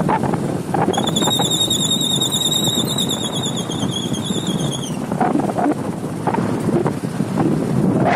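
Wind rushing over the microphone and road noise from a moving vehicle. About a second in, a high, wavering tone starts and runs for about four seconds before stopping.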